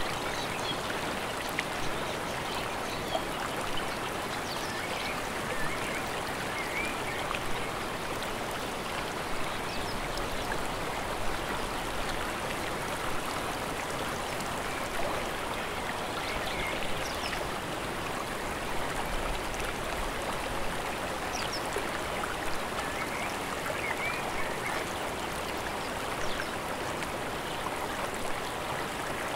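Running water of a mountain stream: a steady, even rush with small splashes and gurgles scattered through it.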